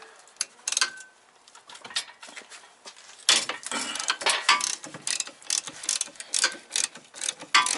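Hand ratchet wrench clicking as it backs a bolt out of an engine mount: a few scattered clicks at first, then a quick, steady run of clicks from about three seconds in.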